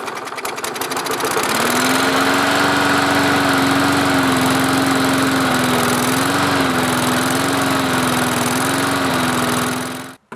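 Small gasoline engine of a walk-behind John Deere lawn mower running after being started. It settles to a steady speed about a second and a half in and wavers briefly a few times, then stops abruptly near the end. It caught once covering the air intake by hand drew fuel up through a partly clogged tank line.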